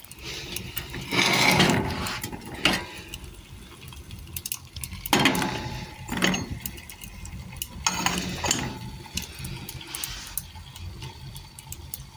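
Splashing water with the clink and clatter of dishes, in irregular bursts with knocks between them.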